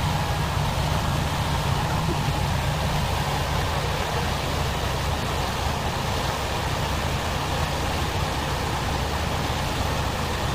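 Truck engine running steadily, a constant low rumble with an even rushing noise above it.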